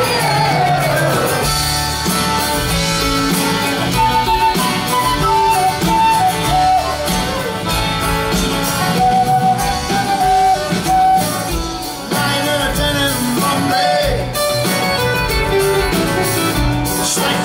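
Live band playing an instrumental break: guitar, bass and drums under a melody of held notes, with a gliding vocal line near the start and again near the end.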